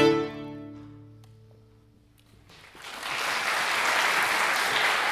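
A string quartet's final chord, released with a sweep of the bows, ringing out and fading away over about two seconds. After a brief hush, an audience breaks into steady applause.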